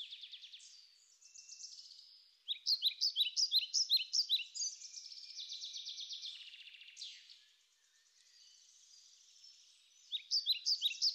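Songbirds singing: bursts of rapid, high chirps and trills, pausing for a couple of seconds before they start again near the end.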